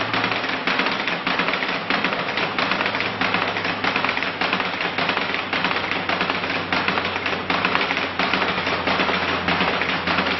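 Continuous fast rattling clatter of percussion, a dense run of rapid clicks without a break, over a steady low hum.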